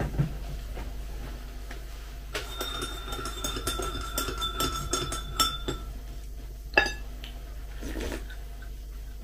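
A metal spoon stirring a drink in a ceramic cup, clinking rapidly against the inside for a few seconds so that the cup rings with a steady tone. A single sharper clink follows about seven seconds in.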